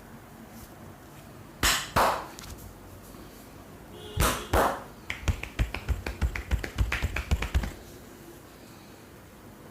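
Percussive hand strikes from a barber's Indian head massage: two pairs of loud slaps, then a quick run of sharp claps or taps, about eight a second, that stops suddenly near the end.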